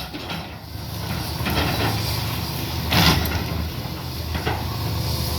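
Caterpillar heavy machine's diesel engine running steadily while clearing trees, with several cracks of wood, the loudest about three seconds in.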